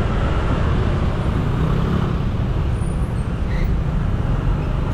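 Motorcycle engine running, heard from the rider's seat, with the steady noise of dense, slow-moving traffic around it.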